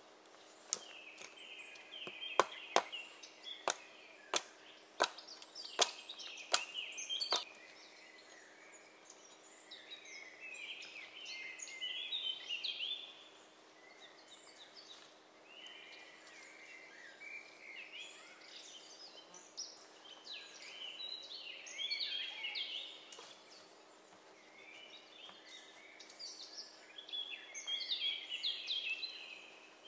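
An axe striking wood with about a dozen sharp, irregular knocks over the first seven seconds or so, then stopping. A songbird sings repeated short, falling trilled phrases throughout.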